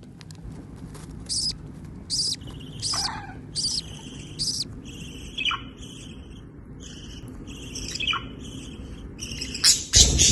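Pet budgerigars chirping: a string of short, high chirps, then quicker twittering chatter. A loud harsh burst comes near the end.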